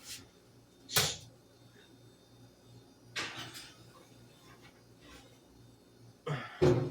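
Oven door and rack handled as a baking pan goes into the oven: a sharp clunk about a second in, a short scrape at about three seconds, and a louder pair of knocks near the end.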